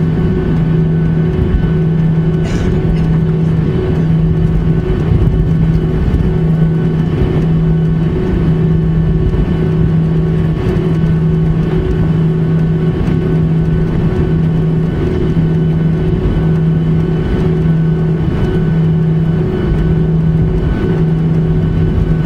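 Steady cabin noise inside a Boeing 737-800 on final approach: the rush of airflow and the drone of its CFM56-7B jet engines. A low hum in it throbs about once a second.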